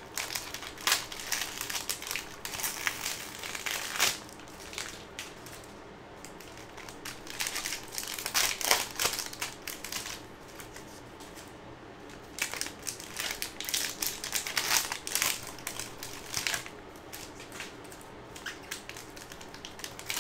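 Plastic and foil wrappers of football trading-card packs being crinkled and pulled open by hand: an uneven run of crackling rustles, with a few sharper, louder crackles.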